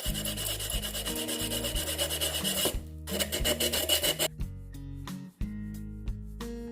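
Sandpaper rubbed over the edges of a vase in rapid, even back-and-forth strokes, smoothing them down, with a short pause about three seconds in. The sanding stops about four seconds in, leaving background music.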